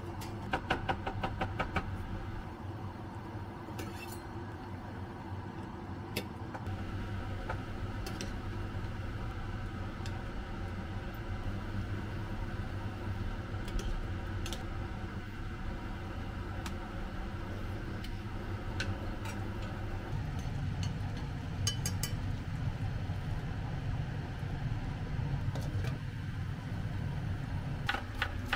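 Steady low hum of a kitchen fan, growing louder about two-thirds of the way through, with scattered clicks: a quick run of clicks near the start, a spoon clinking against a stainless steel saucepan while stirring about halfway, and a knife tapping on a cutting board near the end.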